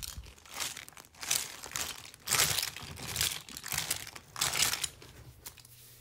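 Plastic toys being moved by hand across a surface, making about six short rustling, scraping bursts with brief pauses between them.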